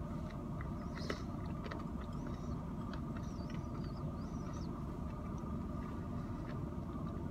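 Steady low hum of a running car heard inside its cabin, with faint crunching from nuts and dried berries being chewed.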